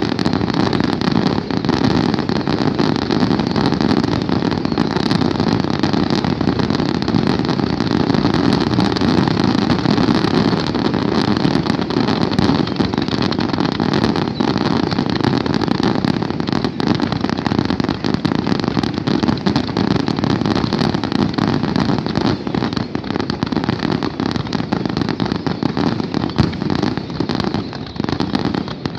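Fireworks display: a dense, continuous barrage of rapid bangs and crackles that blur together into a steady rumble.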